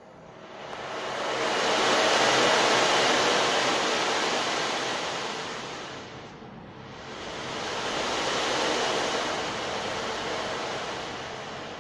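Rushing surf-like noise of waves breaking and washing out, swelling and fading twice about six seconds apart.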